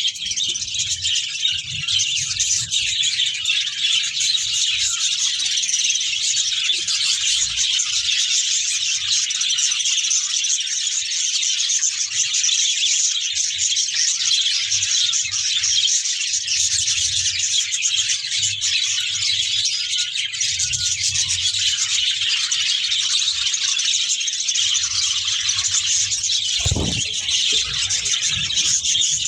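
Large colony of budgerigars chattering together: a dense, continuous high-pitched warbling and chirping of hundreds of birds at once.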